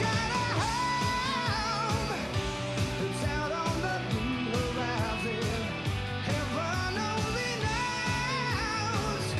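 Background music: a rock-style song with a steady beat, guitar and a wavering lead melody line.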